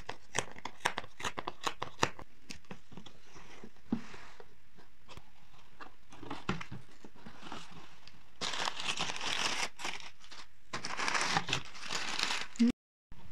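Cardboard box's perforated tear strip ripped open, a quick run of crackles in the first few seconds, then brown kraft packing paper crumpled and pulled out in two spells of loud rustling, around the middle and near the end.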